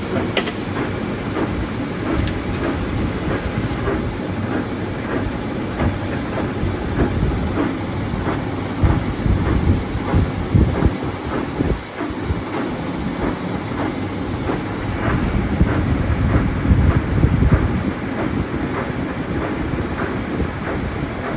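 Warner & Swasey 3-A turret lathe running under power, a steady mechanical rumble with a regular rhythmic clicking from the drive.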